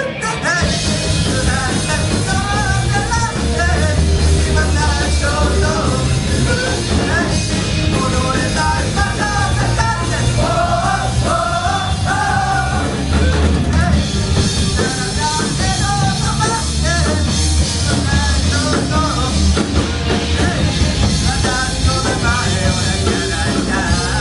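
A rock band playing live with a lead vocalist singing over a full, loud band backing.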